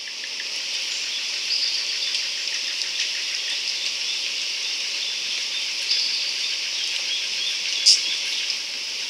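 Nature-sound ambience: a steady high hiss with small chirps scattered through it, and one brief sharp chirp about eight seconds in.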